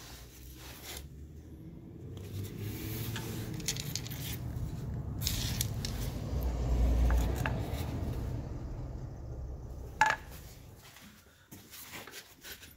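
Handling noise of tools and metal parts, with a low rumble that swells and then fades, and one sharp ringing metal clink about ten seconds in.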